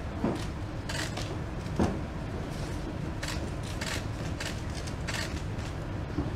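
Pro wrestling ring and hall ambience: a steady low rumble with scattered knocks and taps, and one louder thud a little under two seconds in, as the wrestlers move about the ring.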